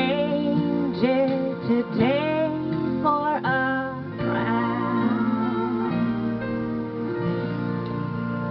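Music from the closing bars of a hymn with acoustic guitar: a wavering melody line for the first four seconds or so, then a long held chord.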